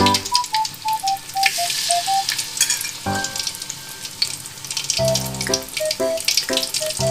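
Flour-battered tilapia pieces deep-frying in hot oil in a wok, a dense crackling sizzle, with a fresh batch just slid into the oil. Background music plays over it: a simple melody, joined by a bass line about five seconds in.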